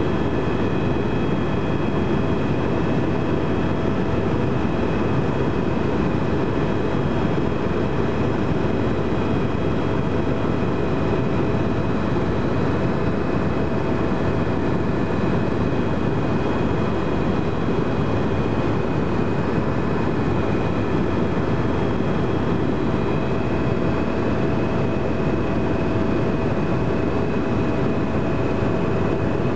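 Tour helicopter in flight: a steady, loud drone of rotor and engine, with thin steady whining tones above it.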